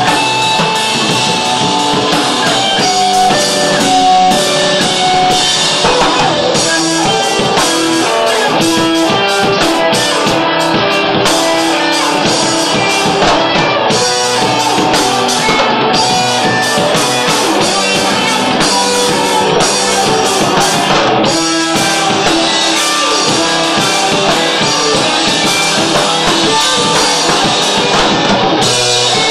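Live rock band playing at full volume: guitar over a drum kit with constant cymbal wash. Recorded through a camera's built-in microphone.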